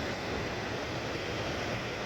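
Rough ocean surf, a steady rushing, with wind rumbling on the microphone.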